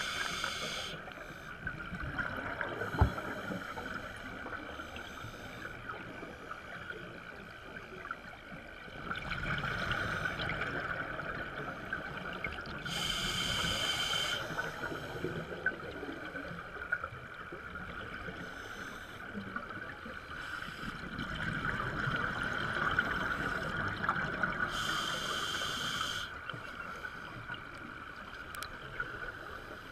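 Scuba breathing heard underwater: short bursts of regulator exhaust bubbles about every twelve seconds, over a steady hiss. A single sharp click comes about three seconds in.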